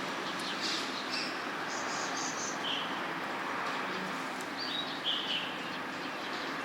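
Birds chirping in short high calls, a cluster of chirps about two seconds in and another near five seconds, over a steady haze of background noise.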